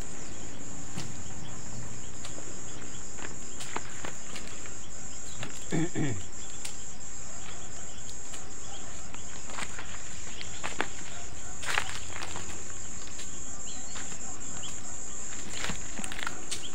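Steady high-pitched insect chorus, like crickets or cicadas, with scattered footsteps and scuffs on stony soil. A brief falling call sounds about six seconds in.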